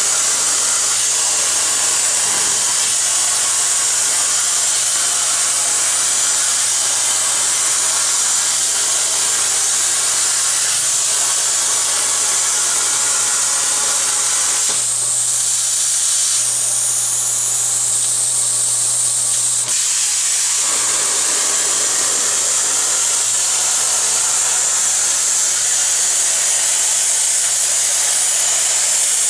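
CNC plasma cutter's arc cutting steel plate: a loud, steady hiss over a steady low hum, the hiss thinning for a few seconds past the middle before carrying on.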